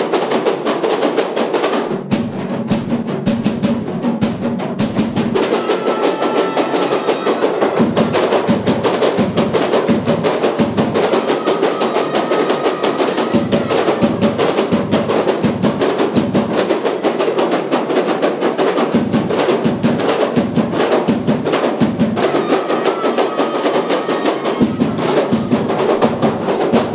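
A kompang ensemble playing Malay frame drums together in a fast, continuous rhythm, with a large barrel drum beating along.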